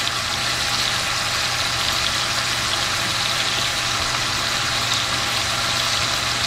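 Chicken thighs sizzling steadily in hot olive oil in an enameled cast-iron Dutch oven as they sear, with a faint low hum underneath.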